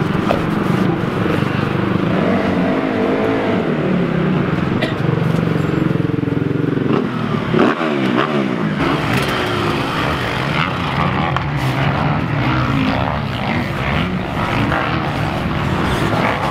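Motocross bike engine running with the throttle blipped, its pitch rising and falling, and one sharp rev about eight seconds in.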